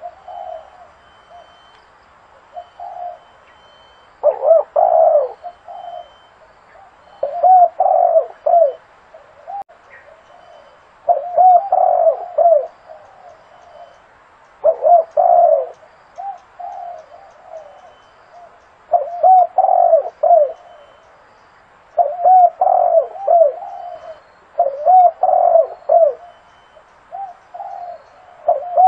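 Zebra dove cooing: phrases of quick, staccato, rising-and-falling coo notes, each phrase about a second long and repeated every few seconds.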